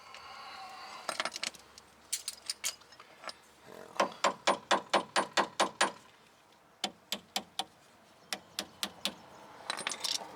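Hand tools working a small metal retaining clip, making bursts of sharp metallic clicks and rattles, including a fast run of about six clicks a second in the middle, with a short metallic ring at the start.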